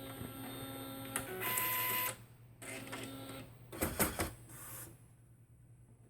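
Epson P600 inkjet printer mechanism running: motor whirring with steady whining tones in several short runs, a cluster of sharp clicks about four seconds in, then it stops about five seconds in.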